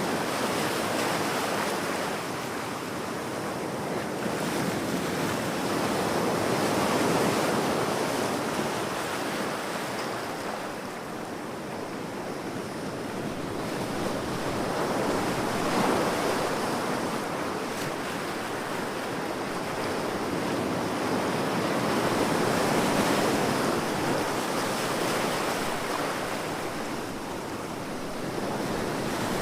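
Ocean surf breaking on a beach, a continuous wash of waves that swells and eases about every seven or eight seconds.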